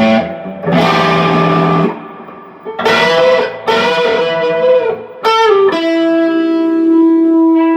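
Les Paul-style electric guitar with Lace Hemi Nitro humbuckers, both pickups on in full humbucker mode, in phase and wired in series, played through an amp: a few strummed chords, then a long held note ringing out near the end.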